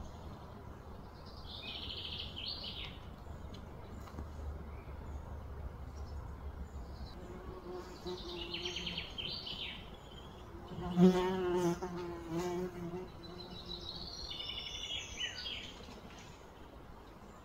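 A buzzing insect, likely a fly, passes close by, its buzz wavering in pitch and loudest about eleven seconds in. Short high chirping trills come and go every few seconds.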